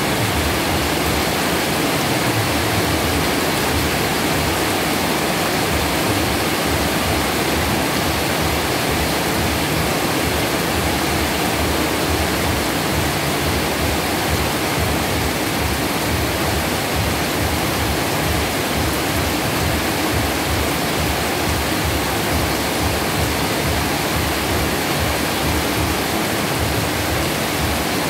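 Heavy rain pouring down steadily, a dense, even hiss with no letup.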